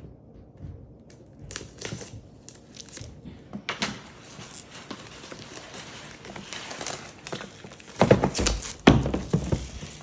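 Plastic shrink wrap being torn and crinkled off a card-game box, in irregular crackles and rips, with louder knocks and rustling of the box being handled near the end.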